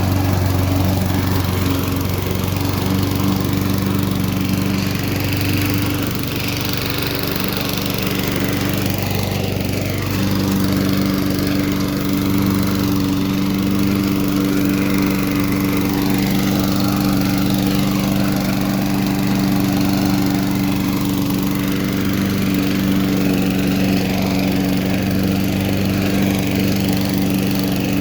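1984 Snapper push mower's 3.5 hp Briggs & Stratton single-cylinder four-stroke engine running steadily, its pitch shifting slightly partway through.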